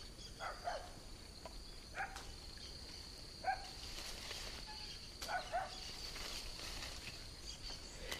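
Insects in the pondside vegetation making a steady high buzz, with short chirping bird calls every second or two and a few faint clicks and rustles of branches.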